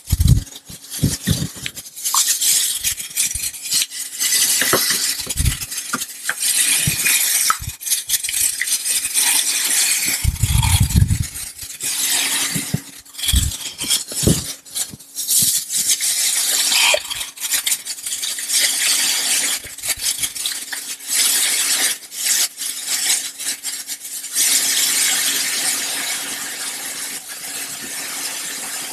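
Plastic bottles and containers being handled, with scattered knocks, clinks and rustling. Near the end, reagent alcohol is poured from a plastic jug through a plastic funnel into a plastic reagent container, a steady pouring hiss.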